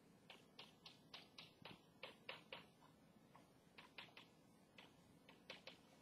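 Chalk tapping on a blackboard as short hatching strokes are drawn: a faint, irregular run of quick clicks, about three or four a second.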